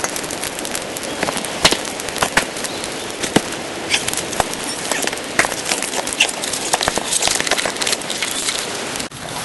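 Burning birdhouse crackling: a steady hiss with many sharp, irregular pops and snaps.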